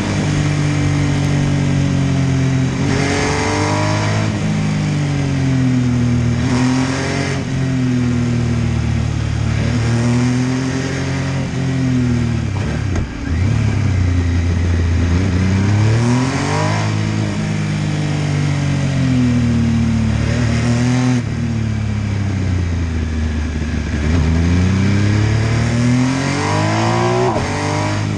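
MV Agusta F3 800's three-cylinder engine under way, its revs repeatedly climbing and falling as the rider opens and closes the throttle and changes gear. The throttle closes briefly about halfway through.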